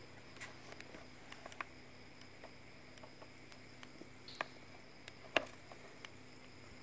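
Quiet room tone, a faint steady hiss and hum, broken by a few small scattered clicks and taps; the two loudest come about four and a half and five and a half seconds in.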